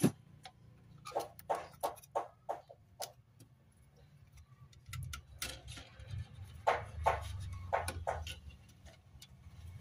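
Irregular light clicks and knocks from handling an LCD TV's power-supply board and its plastic wire-harness connectors, in clusters with short pauses, over a low steady hum; a sharper click right at the start.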